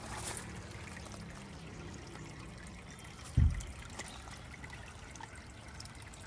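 Steady trickle of water from a garden pond's water feature. The tail of background music fades out over the first couple of seconds, and a single low thump comes about halfway through.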